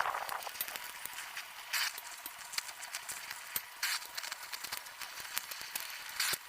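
Gas welding work: scattered light clicks and taps, with three short bursts of hiss about two seconds apart.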